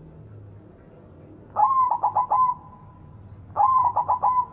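White zebra dove (perkutut) cooing: two song phrases about two seconds apart, each a quick run of four or five notes.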